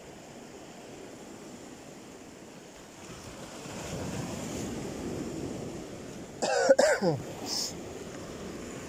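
Sea waves washing and breaking over shore boulders, a surge swelling up about halfway through. Just after that, a short loud vocal sound from the man, falling in pitch and cough-like, is the loudest thing.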